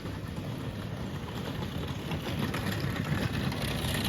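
Steady rain falling, with a low rumble under it that swells over the second half.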